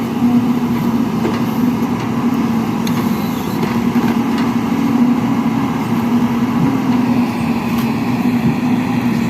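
Excavator diesel engine running at a steady, unchanging pitch.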